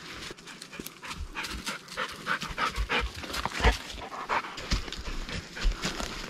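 A person breathing hard in quick, short breaths while walking, with low thuds of footsteps on the leaf-littered forest floor.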